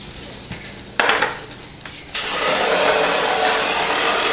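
A sharp knock about a second in, then, from about two seconds in, a radio-controlled toy car's small electric motor starts and runs steadily.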